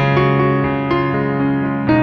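Background music: a keyboard melody of sustained notes, with a new chord coming in near the end.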